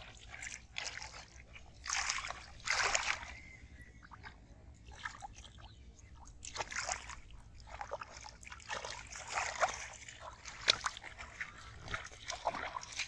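Shallow muddy water sloshing and splashing in irregular bursts as hands grab at a carp in the water.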